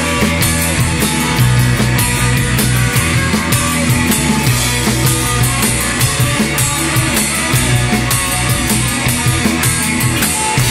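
Live post-punk rock band playing loudly: drum kit keeping a steady beat under electric bass and hollow-body electric guitar.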